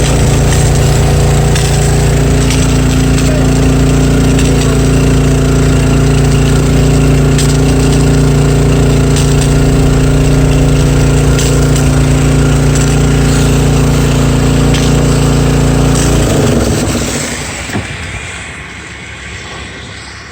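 Boat engine running steadily at high throttle, then throttled back about 16 seconds in, its pitch dropping and the sound fading as the boat slows.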